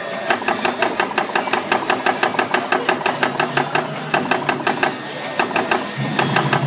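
Antique coin-operated Texas Ranger Gatling gun arcade game firing: a rapid mechanical clatter at about six clicks a second, pausing briefly a few times, with a low hum joining near the end.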